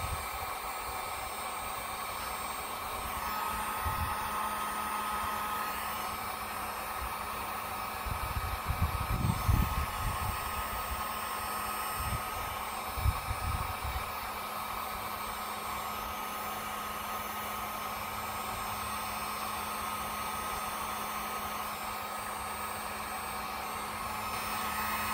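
Handheld electric heat gun running steadily, blowing hot air with a constant motor whine and hum while it heats a mower deck decal to loosen its glue. A few short low thumps come in around the middle.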